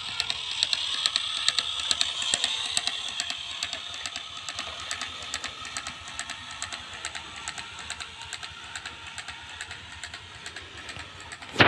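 Small motor and belt drive of a miniature PVC hand tractor running, a thin whine with rapid irregular clicking, slowly fading as the toy pulls its trailer away.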